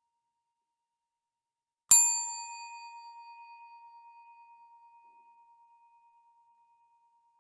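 Desk bell struck once about two seconds in: a bright metallic ding that rings on and fades slowly over several seconds, with a slight pulsing as it dies away.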